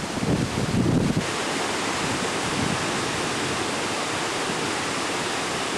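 Steady rush of fast tidal rapids. Wind buffets the microphone with low gusts for about the first second, then stops.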